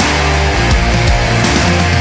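Loud background rock music with a steady beat.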